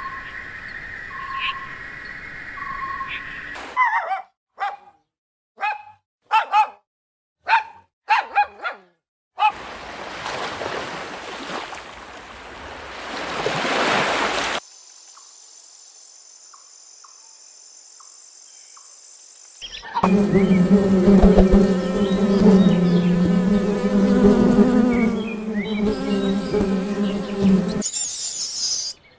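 A string of short, separately cut animal-sound clips, mostly insects: repeated short calls, sharp separate chirps, a hissing swell, a faint steady high tone, then a loud buzzing drone like a fly or bee for the last third.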